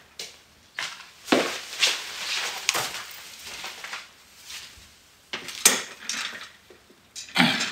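Irregular knocks, clacks and rustles of a person moving about a small room and handling things at a desk. A few sharper clacks stand out about a second and a half in and a little past five seconds in.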